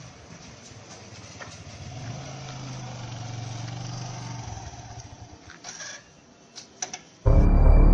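A motorcycle engine runs with a steady low note that swells a little, then stops about four and a half seconds in. A few sharp clicks follow, and loud, eerie music comes in just before the end.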